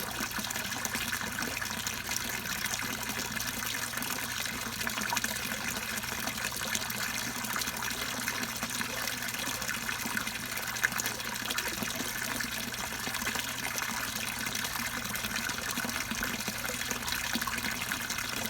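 Water steadily splashing and trickling into a backyard pond, with a low steady hum underneath.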